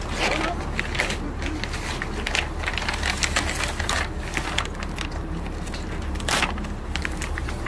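Irregular clicks, knocks and rustling of things being handled, over a steady low hum.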